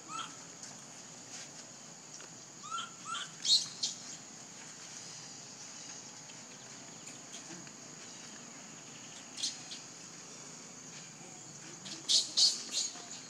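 Short, high-pitched chirping calls from a small animal, in scattered clusters and loudest near the end, over a steady high hiss.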